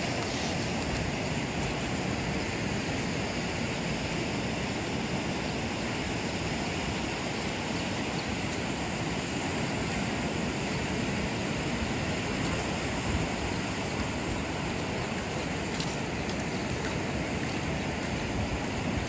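Steady, unbroken wash of ocean surf.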